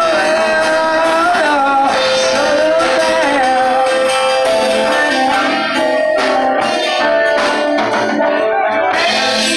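A live band playing: saxophone, electric and acoustic guitars and drums together, with a held, wavering melody line over the band.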